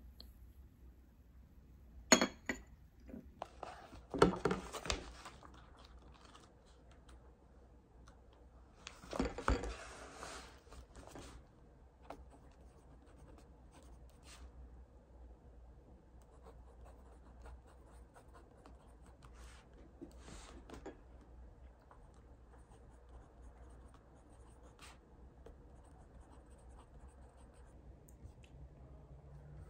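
Small handling sounds at a tabletop: a sharp clack about two seconds in, louder rustling bursts around four and nine seconds in, then the soft scratching of a pen writing in a notebook, with light laptop key taps near the end.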